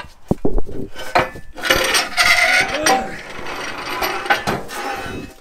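Steel cross member being worked out of an engine cradle: a few sharp metal knocks, then a longer stretch of clanking and scraping metal against metal.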